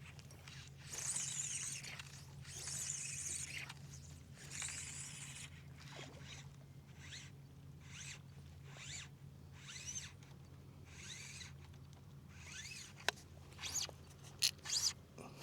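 Fly line being stripped in through the rod guides in a series of quick pulls, each giving a short zipping rasp, with a few sharp clicks near the end.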